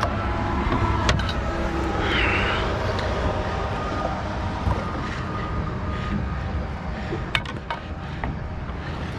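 An engine running steadily as a low hum with a few faint steady tones. There is a short hiss about two seconds in, and a few sharp clicks and knocks about a second in and again around seven and a half seconds in.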